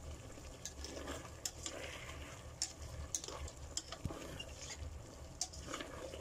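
Chicken wing tips being stirred in a pan of thick, sticky sauce: scattered light clicks and scrapes of the utensil and pieces against the pan, over a steady low hum.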